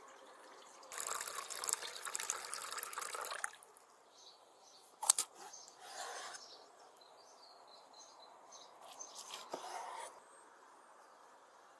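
Water poured from a copper jug into a wooden bowl, splashing for about two and a half seconds. Then a sharp knock and a knife cutting through a peeled potato on a wooden board, twice.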